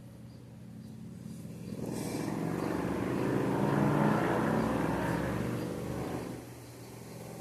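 A passing vehicle's engine, swelling to its loudest about four seconds in and fading away before the end.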